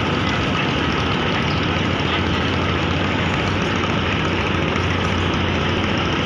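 Heavy diesel engines of a vessel running steadily: a constant low hum under a rushing wash of noise.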